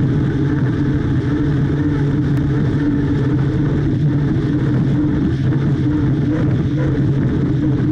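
Turbine-powered unlimited racing hydroplane running flat out at about 170 mph, heard from a camera on its wing: a steady, unbroken drone of the engine and drivetrain under a wide rush of wind and spray noise.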